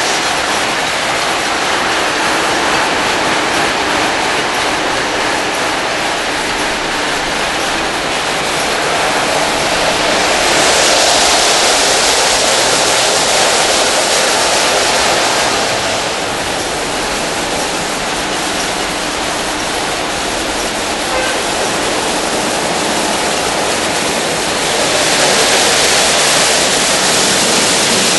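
Automatic rollover car wash running on a van: a steady rush of water spray and rotating-brush machinery. It grows louder and hissier for several seconds about ten seconds in, and again near the end.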